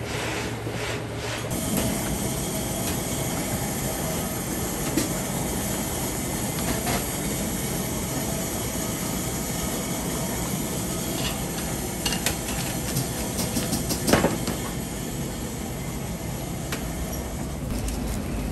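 Kitchen machinery running steadily, with scattered clicks and one louder knock about fourteen seconds in.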